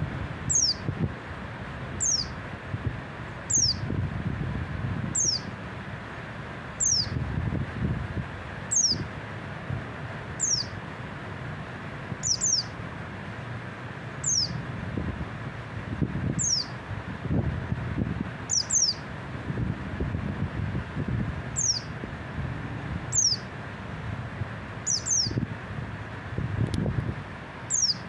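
White-eye (pleci) giving short, high call notes that slide downward, about one every one and a half seconds, a few in quick pairs. Wind rumbles on the microphone underneath.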